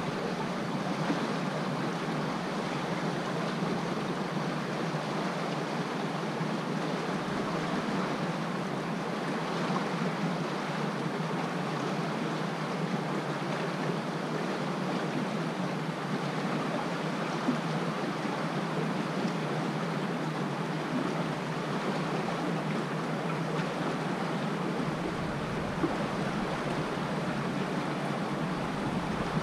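River water flowing and lapping against a stone bank, a steady, even rush of water. A low rumble joins near the end.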